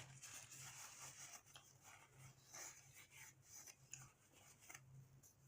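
Faint close-up eating sounds: a sloppy joe being chewed, with small irregular wet clicks and scratchy crackles, over a steady low hum.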